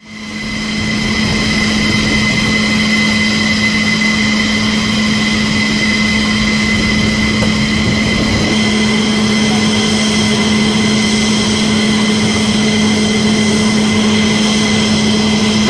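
Jet turbine engines running steadily on a military flight line: a high, multi-toned whine over a low hum, fading in at the start, with a further mid-pitched tone joining about halfway.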